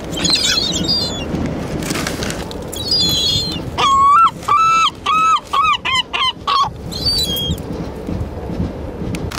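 Gulls calling at close range. There are scattered high squeals, and from about four seconds in comes a loud run of six or seven quick calls on one pitch, then a last short squeal.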